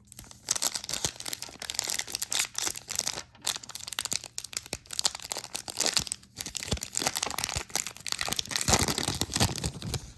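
The wrapper of a hockey card pack being torn open and crinkled by hand: continuous crackling and rustling, a little louder near the end.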